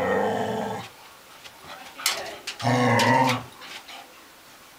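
Kerry blue terrier growling at her own reflection in a mirror, in two rough bouts about a second long each, with a short sharper sound from her just before the second.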